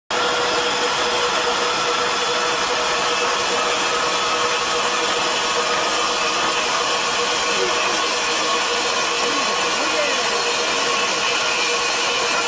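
Diamond wire saw running steadily, its standard-type diamond wire dry-cutting a steel H-beam: a steady grinding noise with a constant whine.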